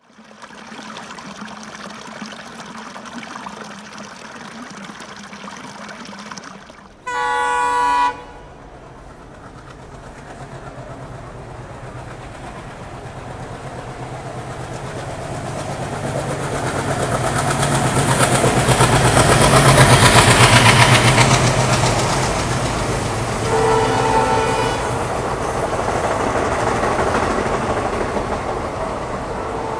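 WDM3A diesel locomotive with an ALCO 251 engine sounding its air horn, about a second long, seven seconds in. The engine rumble and the train's running noise then swell as it comes through, with wheels clattering on the rails and a second short horn blast near the loudest point of the pass.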